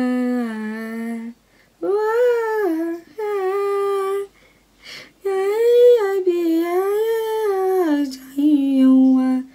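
A woman singing a melody unaccompanied, in long held phrases that rise and fall in pitch, with short breaks between phrases.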